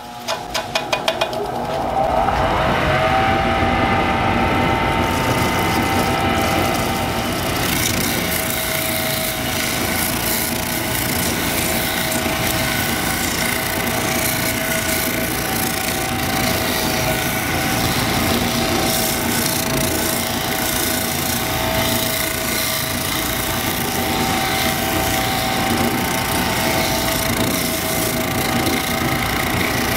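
Motor of a homemade lapidary polishing machine spinning up over the first couple of seconds, then running steadily with a whine. From about eight seconds in, a gritty hiss is added as a chrysocolla nugget is ground wet against its new 220-grit sanding pad.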